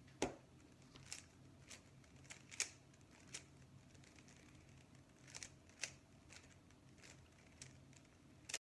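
Rubik's cube being scrambled: faint, irregular plastic clicks as its layers are twisted by hand, over a low hum. The sound cuts off abruptly near the end.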